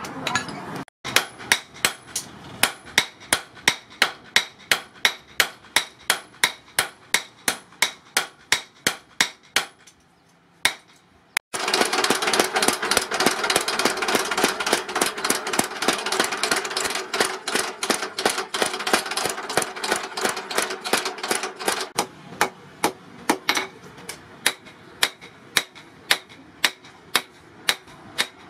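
Hammer blows on a red-hot steel knife blade against a steel anvil, forging the blade, about three sharp metallic strikes a second. The hammering stops briefly about ten seconds in, then resumes with a steady noise under the blows until a little past twenty seconds.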